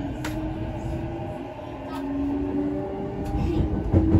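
Cabin running sound of a JR East E233-0 series electric train: the traction inverter and motors whine in several steady tones that climb slowly as the train gathers speed, over the rumble of the wheels on the rails. A few sharp clicks are heard, then a thump about four seconds in, and the running noise grows louder.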